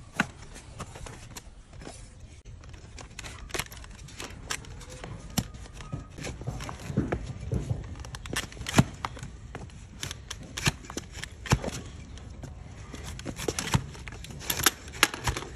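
A large flat hoof-trimming blade shaving and scraping horn off the sole of a donkey's hoof held on a wooden stool: irregular crisp scraping strokes and sharp clicks as the blade cuts the hard horn, a few much louder than the rest.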